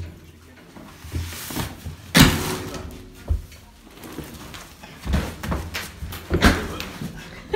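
A handful of sharp knocks and thuds, like things being banged or set down. The loudest comes a couple of seconds in, with more near the end.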